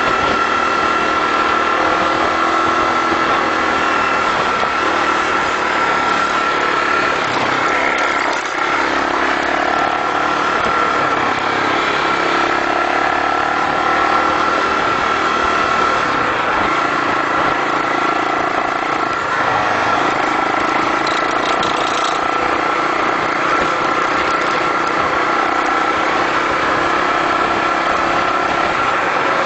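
Honda 250cc motorcycle engine running at a steady riding speed along a bumpy dirt track, heard from the handlebars, its pitch wavering slightly over a steady whine.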